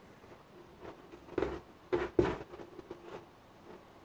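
Fabric and thread being handled during hand-sewing. There are a few short rustles and scrapes of cloth, about a second and a half and two seconds in, over a quiet room background.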